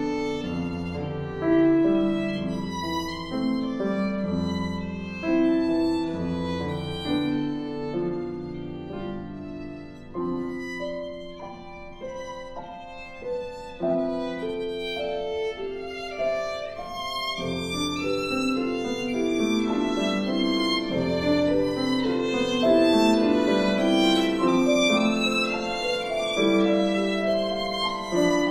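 Violin and grand piano playing a classical duo: the violin holds bowed melody notes over piano chords and low bass notes. The music falls quieter a little before the middle, then builds louder toward the end.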